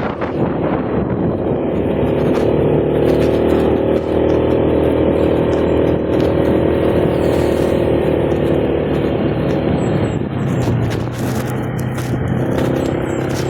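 Motorcycle engine running under way, its note easing down about ten seconds in and rising again near the end.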